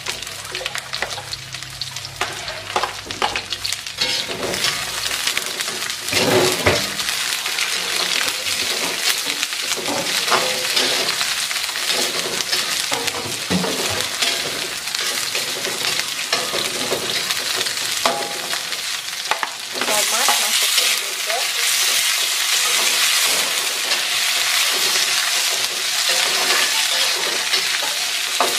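Sliced green chillies, shallots and garlic sizzling in oil in an aluminium wok, stir-fried with a spatula that scrapes and knocks against the pan. The sizzle grows louder about two-thirds of the way through.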